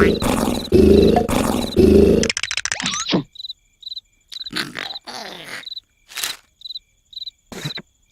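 Loud cartoon snoring in repeated bursts a little under a second apart, ending in a quick rattle about two seconds in. Crickets chirp steadily in a regular rhythm throughout, with a few short rustling sound effects in the quieter part.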